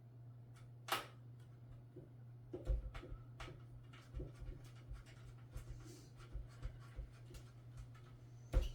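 Motherboard screws being driven into the case standoffs with a screwdriver: scattered small clicks and scraping, with a sharp click about a second in and another near the end, over a steady low hum.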